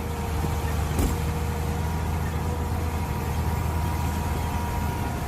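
Mini excavator's diesel engine running steadily, with a faint steady whine over the hum and a single knock about a second in.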